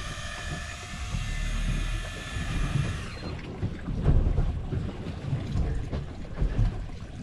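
Fishing reel whirring with a steady high buzz for about three seconds while a hooked fish bends the rod hard, then stopping. Wind and water rumble against the boat throughout, with a few knocks about four seconds in.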